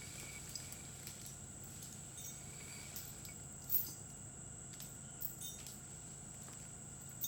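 Faint outdoor ambience: a steady high-pitched drone over a low hum, with scattered light clicks, the sharpest about four seconds in.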